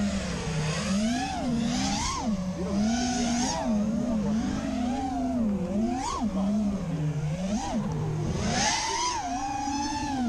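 A 6S FPV freestyle quadcopter's motors and propellers whining during freestyle flight. The pitch swoops up and down again and again as the throttle is punched and chopped, with a higher, steadier whine near the end.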